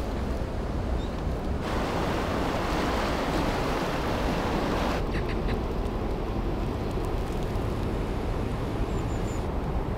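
Steady rush of river water running over shallow rapids, with wind rumbling on the microphone. The rush is louder for about three seconds from nearly two seconds in.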